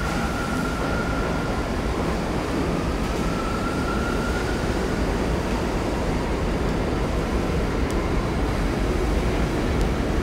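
R68 subway train cars rolling past a station platform: a steady rumble of wheels on rail. A thin high whine from the running gear comes and goes in the first half.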